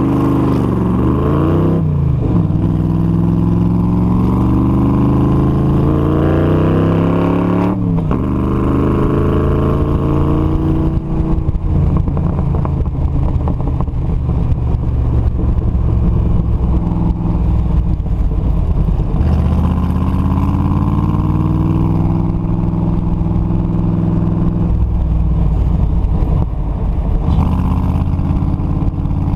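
Factory Five Cobra's V8 heard from the open cockpit under hard autocross driving, revving up again and again through the first eight seconds, cutting back sharply, then rising and falling with throttle through the rest of the run, with wind and tyre noise underneath.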